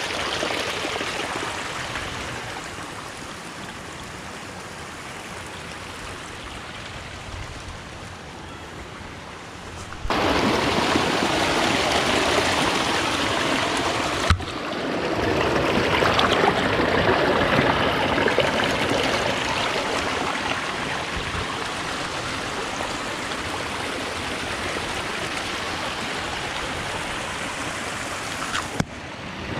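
Rushing water of a stream, a steady noisy rush that jumps louder at a cut about ten seconds in.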